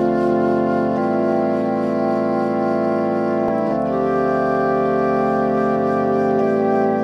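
Music: a slow instrumental opening of held chords over a bass line, the chord changing about every two to three seconds.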